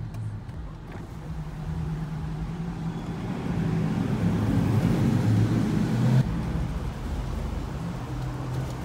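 Low rumble of muscle-car engines and exhaust rolling slowly through a parking garage. It grows louder a couple of seconds in and drops off suddenly about six seconds in.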